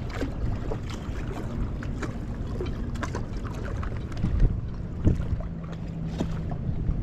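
Wind rumbling on the microphone, with scattered small clicks and two louder knocks about four and a half and five seconds in. A faint steady hum comes in during the second half.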